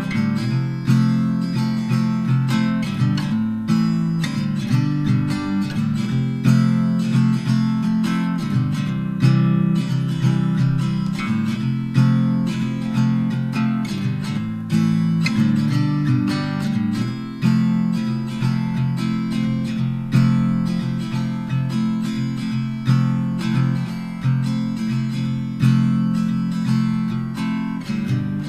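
Background instrumental music led by an acoustic guitar, a steady run of plucked and strummed notes.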